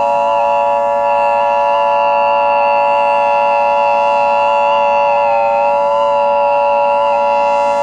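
Civil defense siren sounding a steady alert: a loud, continuous chord of several held pitches with a slight wavering in the middle tones.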